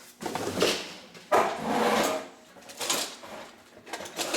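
Rummaging through tools and objects: several bursts of scraping and rustling with knocks, as things are shifted about in a search for a soldering iron that is not there.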